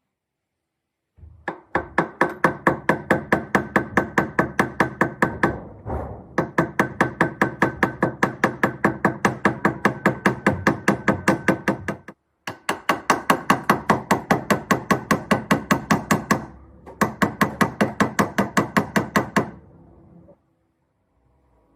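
Rapid, even hammer taps on metal, about four or five strikes a second, each with a short metallic ring. They come in four runs separated by brief pauses.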